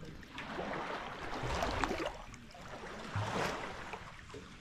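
Water sloshing and splashing in surges, with small crackling splashes, as people move through the water.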